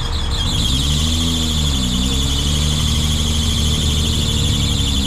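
Off-road 4x4's engine running under load at the foot of a muddy slope, its pitch rising and falling about a second in, then holding steady. A loud, rapidly pulsing high buzz runs over it.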